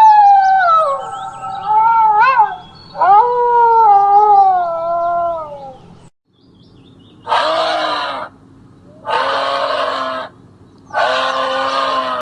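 Animal calls: several long pitched cries that waver and slide down in pitch, then, after a short break, three separate rough calls of about a second each, spaced about two seconds apart.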